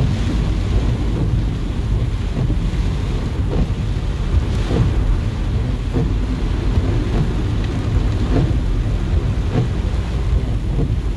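Heavy rain beating on a car's windshield and roof, heard from inside the car as it drives through flooded streets, over a steady low rumble. The windshield wipers sweep with faint knocks about once a second.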